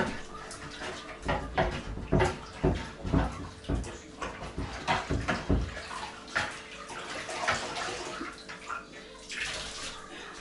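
Water sloshing and splashing in a basin as a floor cloth is dipped, rinsed and wrung out, in irregular splashes that are heaviest in the first half.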